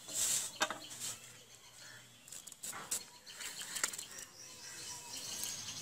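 Amaranth stalks being stripped and cut against a boti, the foot-held upright curved blade: a loud rasp near the start, then several sharp clicks and snaps. Birds chirp faintly in the background.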